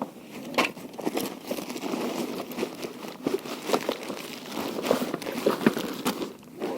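Close rustling and crinkling handling noise with many small, irregular clicks.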